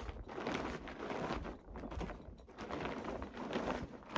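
Footsteps crunching through deep powdery snow, a steady walking rhythm of about two steps a second.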